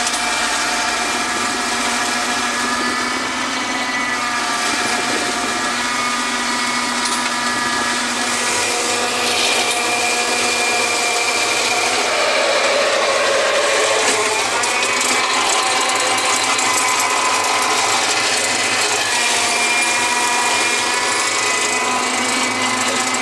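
Tractor engine working under load as it drives a Hayes 2.4 m flail mower cutting through long, thick grass. The sound is a steady mechanical drone with a whine, heard from the tractor seat. Its pitch wavers briefly about halfway through.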